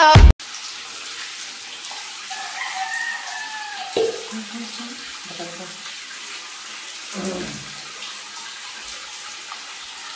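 Water running steadily from a tap, with a short knock about four seconds in.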